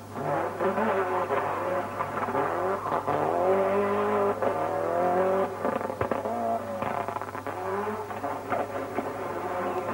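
Group A Toyota Celica rally car's turbocharged four-cylinder engine revving hard, its pitch rising and falling several times as it is driven flat out through a tight stage.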